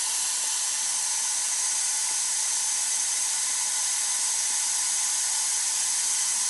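Heated compressed air blowing from the nozzle of a cold gas-dynamic spraying rig for steering rack repair, making a steady, even hiss.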